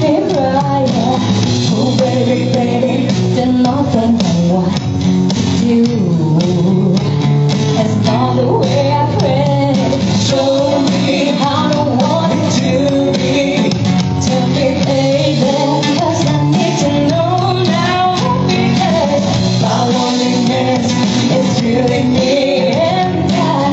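Live band music: guitar chords under a wavering melody line, with no words sung.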